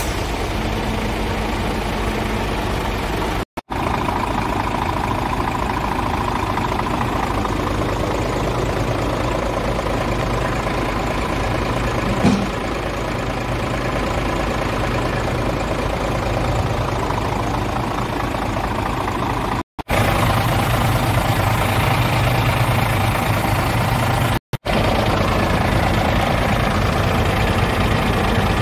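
Scania G450 truck's 13-litre inline-six diesel idling steadily, heard close to the chassis, with a single short knock about twelve seconds in.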